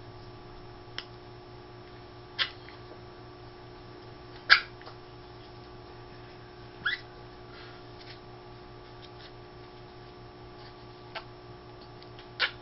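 A young child making short, high squeaky vocal noises around a toy held in the mouth: about four brief squeals, the loudest about four and a half seconds in, with a few faint clicks between them.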